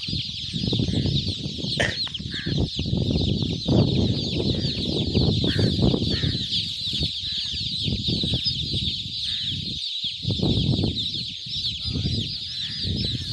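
Hundreds of newly hatched chicks peeping all at once: a dense, unbroken chorus of high chirps over an uneven low rumble.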